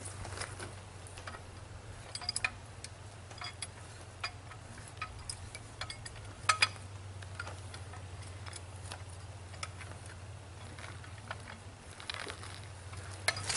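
Scattered small metal clicks and ticks as a cast-iron pitcher pump is turned by hand onto the threaded top of a steel well pipe, with one louder knock about six and a half seconds in.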